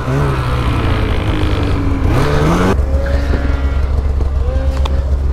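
Snowmobile engine revving, its pitch climbing near two seconds in, then dropping abruptly to a steady low running about three seconds in. The sled is stuck in deep snow on a steep climb.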